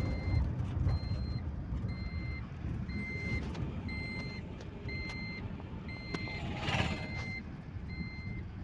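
Tata Yodha 1700 pickup's 2.2 diesel engine running with a low rumble, free of the noise that its broken gear shield plate had caused. An electronic reversing alarm beeps about once a second over it, and a short rushing noise comes about two-thirds of the way through.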